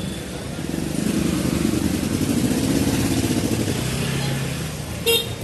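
Engine of a motor vehicle running close by, growing louder about half a second in and fading away about four seconds in as it passes.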